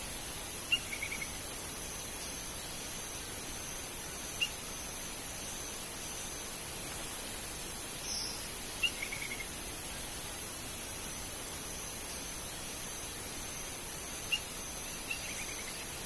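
Male lineated woodpecker calling faintly four times, several seconds apart: each call is a sharp note, mostly followed by a short quick rattle of a few notes. A steady high hiss runs beneath and is louder than the calls.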